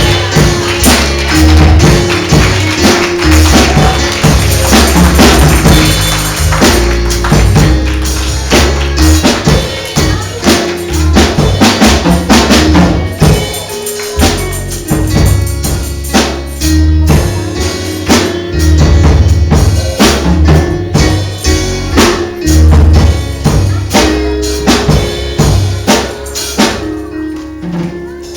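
Live gospel music with a steady beat, driven by bass, drum kit and tambourine; it thins out near the end.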